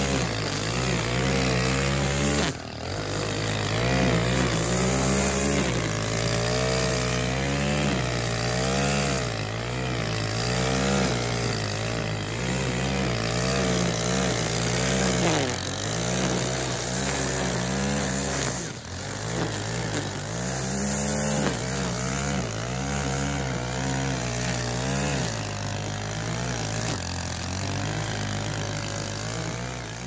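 Two-stroke petrol strimmer (brush cutter) cutting long grass, its engine revving up and down as the head swings, with a few brief drops in revs.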